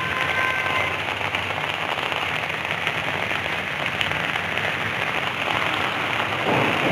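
Heavy rain falling on a wet street and puddles: a dense, steady patter.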